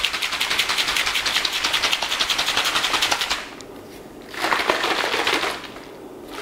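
Shaker bottle of protein powder and water being shaken hard, the liquid sloshing and slapping inside in quick even strokes, several a second, as the powder is mixed in. The shaking stops a little past halfway, starts again for about a second, and stops again shortly before the end.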